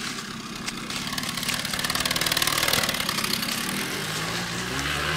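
Rokon Trailbreaker's two-stroke engine running as the two-wheel-drive bike rides down a steep slope, its note climbing in pitch near the end.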